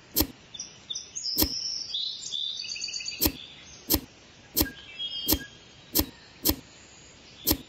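Nine sharp clicks, roughly one a second and quickening near the middle. Birds chirp from about half a second to three seconds in.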